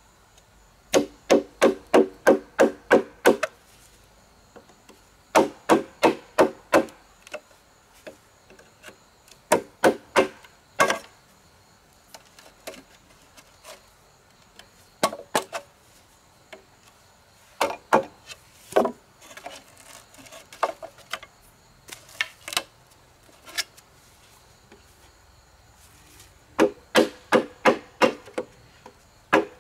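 A knife blade chopping into a green bamboo pole to cut a rectangular hole: quick runs of sharp woody knocks, about four a second, separated by short pauses.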